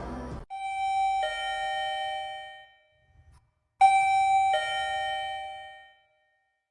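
Two-note ding-dong doorbell chime, a higher note then a lower one, sounding twice about three seconds apart, each ringing out and fading.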